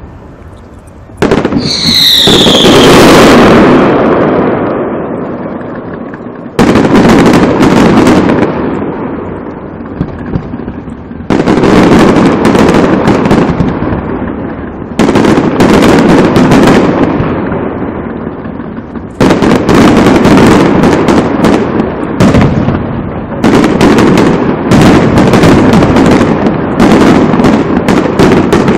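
Aerial firework shells bursting overhead. A heavy bang comes every four or five seconds, each followed by a long rumble and crackle that dies away. A falling whistle sounds just after the first bang, and in the last third many bursts and crackles come quickly one on another.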